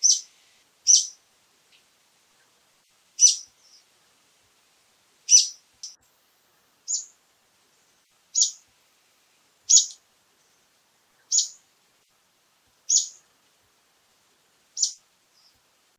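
Brown-eared bulbul giving about ten short, sharp call notes, one every second and a half or so.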